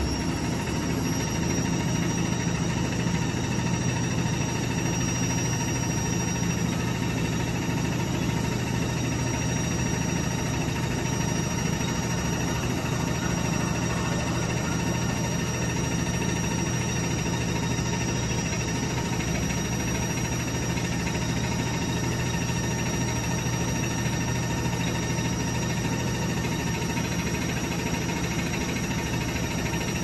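IFB Senorita WXS front-loading washing machine running mid-cycle: a steady, unchanging mechanical hum and vibration, a low drone with a few constant whining tones above it.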